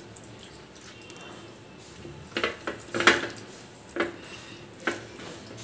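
Hands massaging wet marinade into a whole raw chicken on a stainless steel tray, the chicken and hands knocking against the metal tray about five times in the second half, the loudest about three seconds in.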